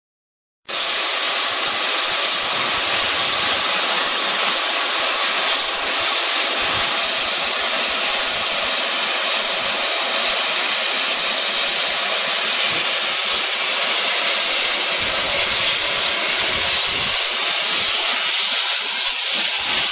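Steam hissing steadily from the small 0-4-0T tank locomotive "Captain Baxter", a loud even hiss that cuts in abruptly less than a second in and holds unchanged.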